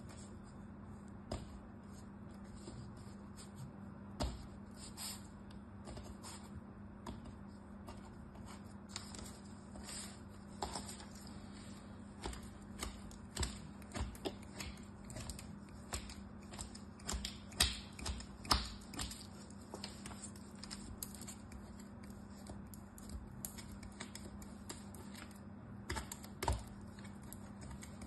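Kinetic sand crunching and crumbling as it is pressed, broken apart by hand and cut with a small knife: scattered crisp ticks and crackles, densest in the middle, over a steady low hum.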